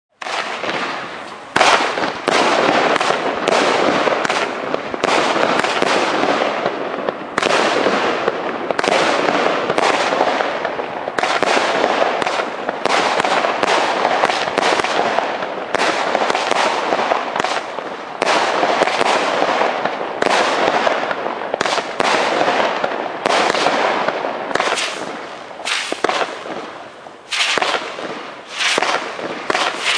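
A 36-shot consumer fireworks cake firing: a dense, loud run of shots and bursts that starts suddenly and follows one after another, with a few short gaps near the end.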